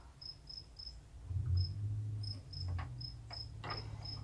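Cricket chirping in short, evenly spaced high chirps. A low muffled hum comes in about a second in, and a few light knocks follow near the end.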